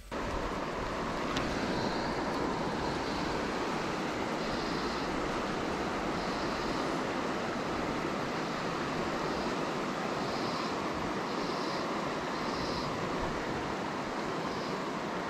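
Steady rush of river water flowing over a stony bed, with short high chirps now and then.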